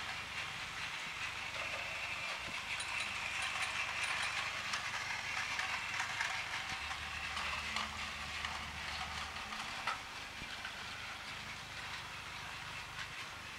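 Plarail battery-powered toy train running on plastic track: its small motor and gearbox whirring with a steady fine clicking, a little louder in the middle, and one sharp click just before the end.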